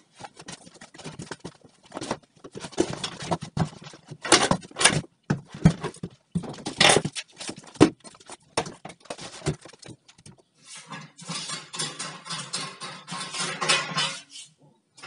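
Packaging around a solar pump controller being handled and pulled away: a long run of irregular crackles, scrapes and rustles, denser and steadier near the end.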